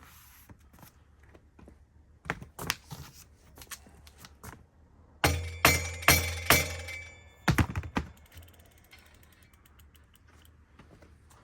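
Metal-on-metal tapping and knocks: scattered light clicks, then a run of about five loud ringing strikes in the middle and two more just after, typical of a hammer driving a flathead screwdriver against a hub motor's axle spacer.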